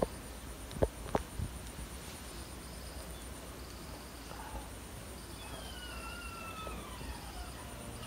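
Crickets and other insects chirping steadily in the background, with a few sharp knocks in the first second or so and a faint, slowly falling call in the second half.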